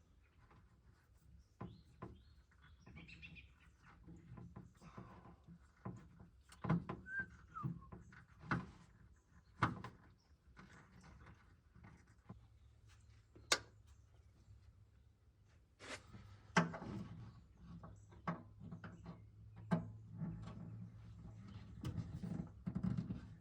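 Scattered clicks, knocks and clunks of hand tools and metal and plastic parts being handled while a van's engine control unit is taken out. A faint low hum joins about halfway through.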